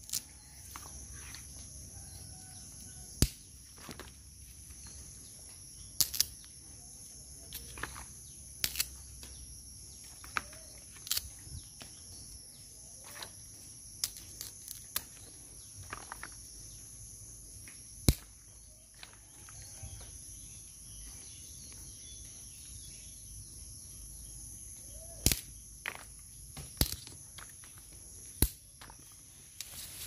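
Steady high-pitched drone of insects, with scattered sharp clicks and knocks from the pheka (Oroxylum) branches and long pods being handled. There are a few faint short calls.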